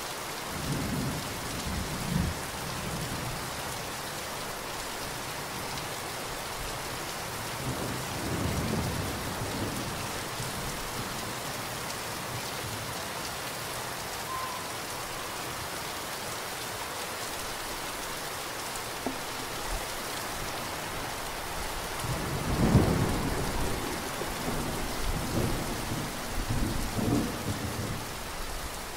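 Heavy rain falling with a steady hiss, and thunder rumbling low several times: about a second in, again around eight seconds, loudest about three-quarters of the way through, with further rumbles near the end.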